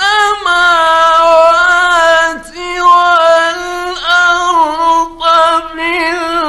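Male Qur'an reciter chanting in the ornamented mujawwad style, drawing a single phrase out into long, high held notes with melodic turns and brief breaks for breath, on a 1950s recording.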